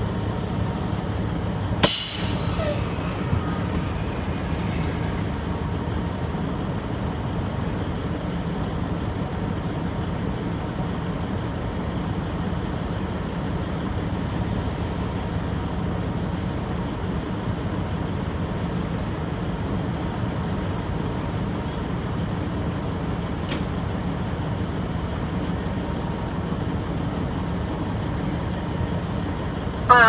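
Semi truck's diesel engine idling steadily, heard from inside the cab, with a short sharp burst of noise about two seconds in.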